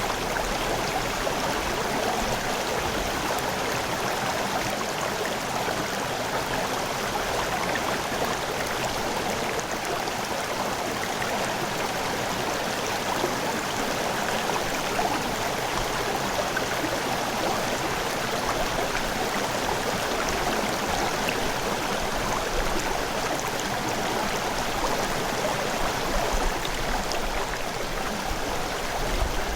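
A river flowing: water running and gurgling over rocks, a steady rushing with no let-up.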